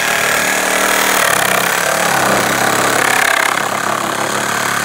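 Makita DJR186Z 18V brushed cordless reciprocating saw running steadily as it cuts through a pallet board at the point where it is fixed with pallet nails.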